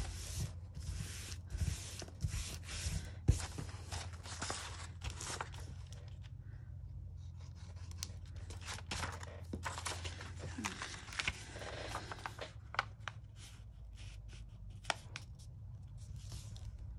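Paper rustling and crinkling in quick, irregular strokes as hands smooth, glue and press a large paper envelope flat, with a few sharp taps, one louder about three seconds in.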